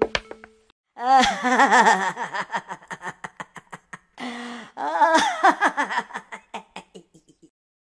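A cartoon gorilla's voice laughing in two bouts, the first starting about a second in, each trailing off into a run of short, quick, fading "ha"s.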